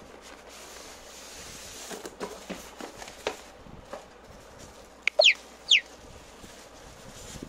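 Plastic wrapping and foam packaging being handled, with scattered crinkles and taps, then three short, loud, high squeaks that each fall in pitch about five seconds in.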